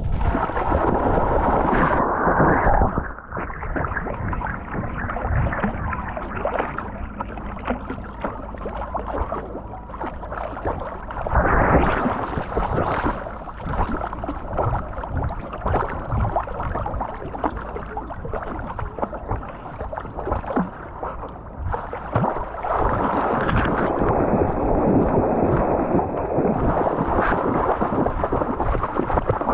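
Water sloshing and splashing around a GoPro strapped to a swimming cocker spaniel's back, with a heavy low rumble, swelling in louder surges about 12 seconds in and again over the last several seconds.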